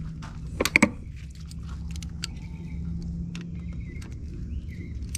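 Metal hand tools clinking as a 12 mm socket and chrome extension are picked up and fitted together. There are two sharp clinks about a second in, then lighter taps.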